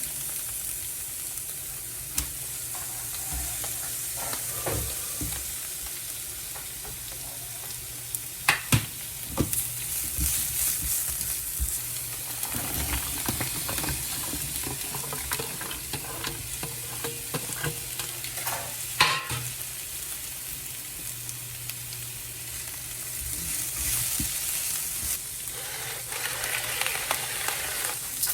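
Food sizzling as it fries in a pan, with a utensil clicking and scraping against the pan now and then.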